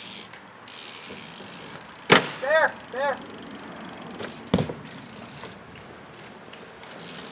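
A BMX bike's tyres knocking sharply onto a wooden bench about two seconds in, then a second knock a couple of seconds later as the bike comes back down onto the asphalt, with tyre and rolling noise between.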